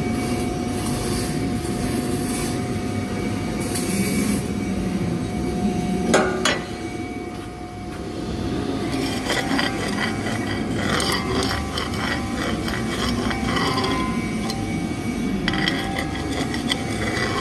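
Metalworking on steel pipe: steady scraping, a sharp knock about six seconds in, then a run of short metallic taps and clinks.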